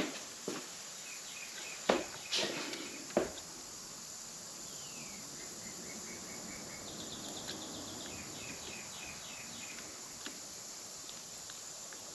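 A few short clicks and knocks from a small screwdriver and screws being handled at a motorcycle's handlebar switch housing, clustered in the first few seconds. Faint, quick, repeated high chirping runs underneath.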